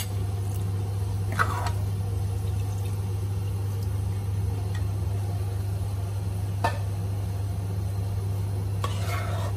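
Water poured from a bowl into a pan of coconut-milk curry, with a few sharp clinks of a metal ladle against the pan, over a steady low hum.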